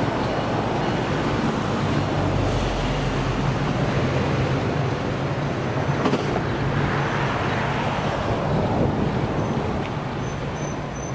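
Passenger train cars rolling past: a steady rumble of wheels on rail, easing off near the end as the last car goes by. Faint insect chirping comes in at the very end.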